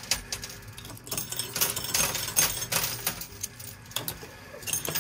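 Coin pusher machine: tokens clinking and clattering as they drop onto the shelf and are shoved along by the pusher, dense irregular clicks over the machine's steady low hum.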